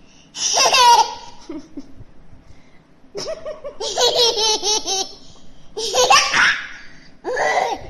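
A toddler laughing in four bursts. The longest burst, in the middle, is a quick run of giggles.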